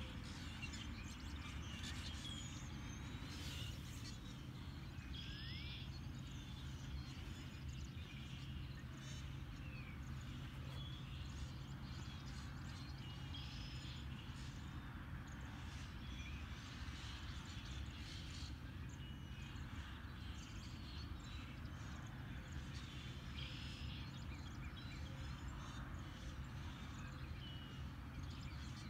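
Mixed early-spring birdsong: many short chirps and calls from several birds, scattered throughout, over a steady low hum.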